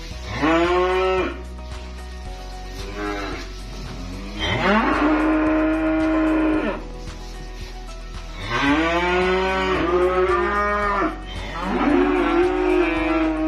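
Young calf mooing four times, each a long drawn-out call that rises and then falls in pitch, with pauses of a second or two between calls.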